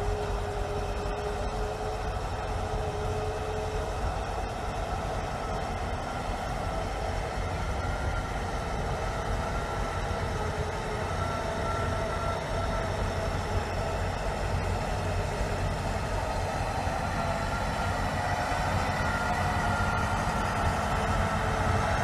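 Heavy truck engine running steadily under load, its pitch drifting slowly up and down, as the truck wades through deep water.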